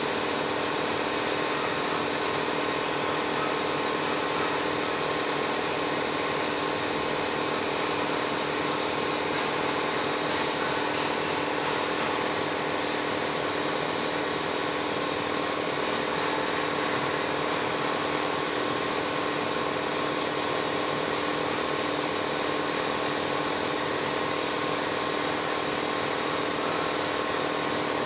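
An automatic light-pole welding machine running: a steady machine hum with a few constant tones over even noise, unchanging throughout.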